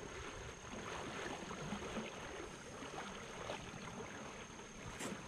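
Faint, steady rush of a shallow river's current, with a brief light tap near the end.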